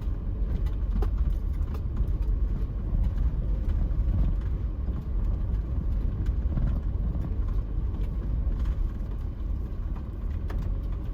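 Car in motion, heard from inside the cabin: a steady low rumble of road and engine noise with a few faint ticks.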